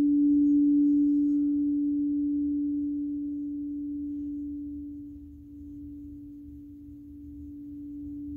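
Frosted quartz crystal singing bowl sung by rubbing a mallet around its rim, then left to ring: one steady low tone that swells about a second in and slowly fades, dipping and swelling again a little past halfway.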